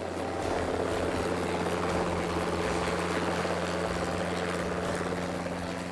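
Helicopter flying, a steady rotor and engine sound that grows louder over the first second, then holds.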